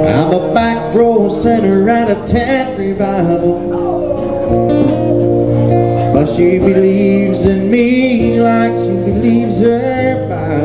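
A man singing into a microphone while strumming an acoustic-electric guitar, played live.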